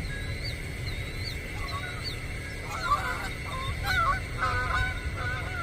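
Birds calling. A small bird repeats a short high chirp about twice a second for the first two seconds. Then a run of harsh, honk-like calls follows for about three seconds, over a steady low rumble.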